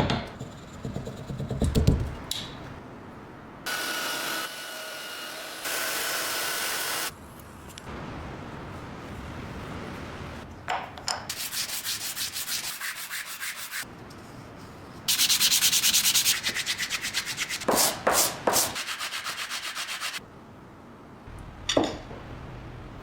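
Rust being sanded off the metal parts of an antique coffee grinder, in stretches of a few seconds, some with rapid back-and-forth strokes. A few sharp knocks come between them.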